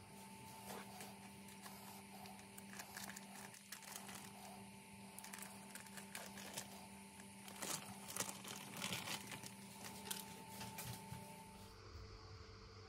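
Baking paper crinkling and tearing as it is peeled off the bottom of a baked chocolate cake, in a run of small crackles that grows busier past the middle. A faint steady hum lies underneath.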